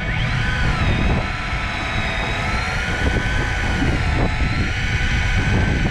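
A motor's high whine, rising in pitch at the start and then wavering slowly, over a steady low rumble.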